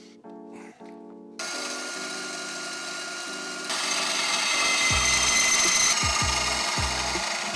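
A DeWalt portable band saw starts about a second and a half in and cuts through steel square tubing, a steady whine and rasp that gets louder midway as the blade bites into the metal. Background music plays underneath.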